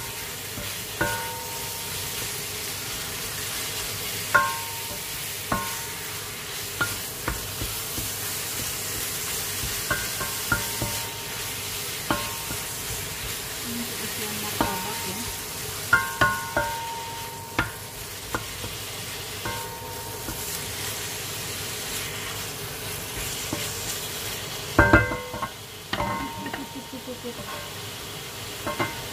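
Minced meat and onion sizzling in a frying pan while a wooden spatula stirs and scrapes, knocking against the pan so that it rings briefly now and then. A louder cluster of knocks comes about 25 seconds in.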